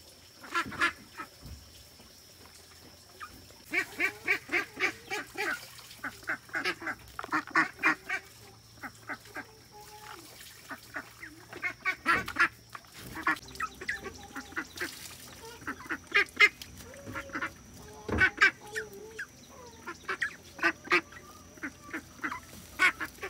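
A flock of white domestic ducks quacking, in quick runs of short calls again and again.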